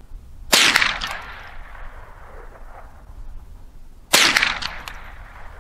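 Two .22 LR rifle shots from a scoped Ruger semi-automatic, about three and a half seconds apart, each a sharp crack followed by a short echo.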